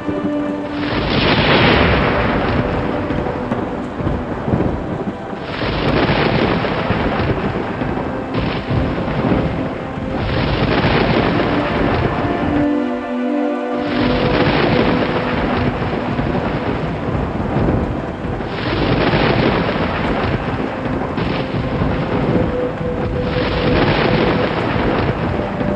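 Thunder rumbling in repeated rolls with rain: each roll breaks in suddenly, about every five seconds, and fades. Faint, soft background music shows through between the rolls.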